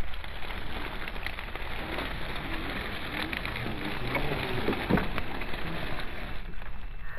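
Dry stalks and twigs crackling and snapping under the tyres of an Axial SCX10 II Honcho RC rock crawler as it crawls through brush, with one louder snap about five seconds in.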